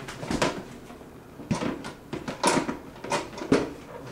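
Red lid of an electric pressure cooker clacking and knocking against the pot as it is twisted and pushed down, several sharp knocks about a second apart. The lid is refusing to lock into place.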